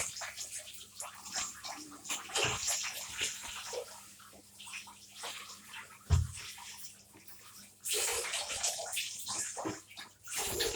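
Water running and splashing, louder near the end, with a single low thump about six seconds in.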